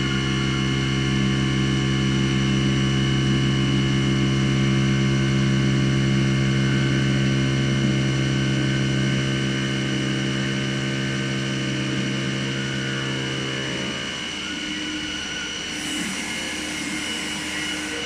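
HAAS VF-8/40 vertical CNC machining center running, a steady machine hum made of several constant tones. About fourteen seconds in, its strong low tone stops and a rougher, noisier sound remains.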